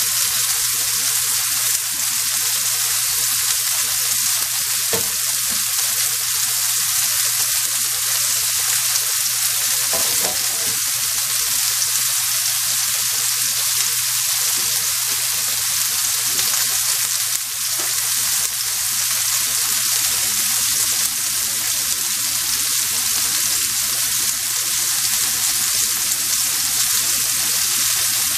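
Marinated shrimp sizzling steadily in oil in a nonstick frying pan as they sear on the first side.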